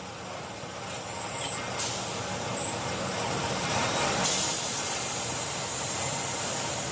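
Compressed air hissing from an air nozzle. The hiss starts about two seconds in, jumps louder a couple of seconds later and then holds steady.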